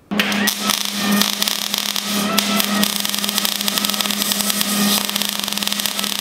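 MIG welder arc running a continuous bead: a steady, dense crackle and sizzle over a low hum, starting abruptly and not breaking.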